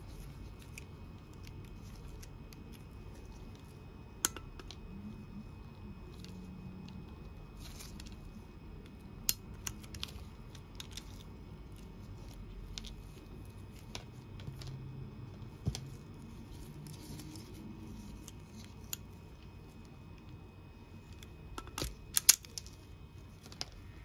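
Self-adjusting wire stripper snapping shut as it strips insulation off red wire: scattered sharp clicks, a few close together around the middle and the loudest quick cluster near the end, over a low steady background hum.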